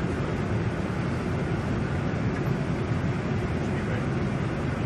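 Steady rushing noise of air and engines on the flight deck of a Boeing 747-400 on final approach, heaviest in the low range and unchanging.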